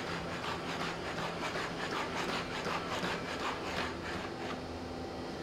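Boston Dynamics Spot robot dog walking on a hard floor: a rhythmic rasping whir from its leg motors with each step, dying away about four and a half seconds in, over a steady low hum.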